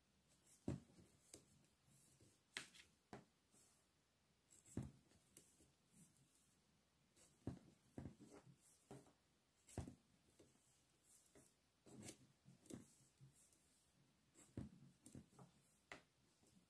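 Faint, irregular clicks and taps of a pair of 3.5 mm knitting needles working stitches in garter stitch.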